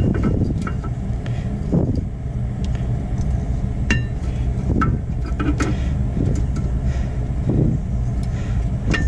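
Scattered light clicks and scrapes as a new brake pad's steel backing plate is slipped into a caliper bracket's pad clips, over a steady low rumble.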